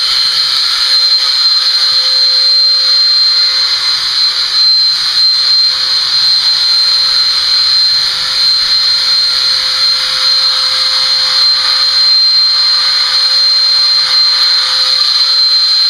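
Corded electric horse clippers running with a steady high-pitched whine while clipping hair.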